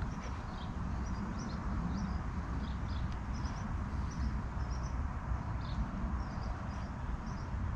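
Small birds chirping in short, high notes scattered throughout, over a steady low rumble.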